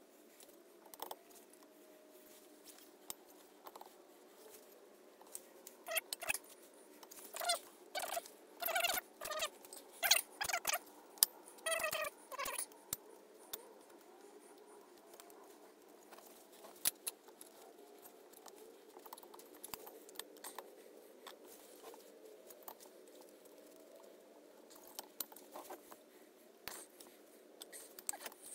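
Scrapes and clicks of the BSA Fury's alloy cylinder barrel block being handled and worked down over the pistons and studs onto the crankcase. The clicks come thickest between about six and thirteen seconds in, over a faint steady hum.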